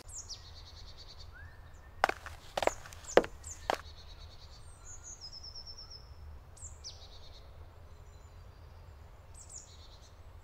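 Small songbirds calling in woodland: short high chirps and a few quick descending trills, over a faint steady low rumble. About two seconds in come four sharp knocks about half a second apart.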